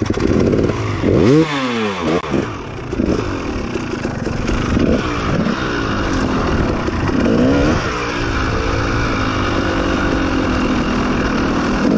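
Dirt bike engine being ridden over rough ground, the revs rising and falling several times, then holding steadier in the second half.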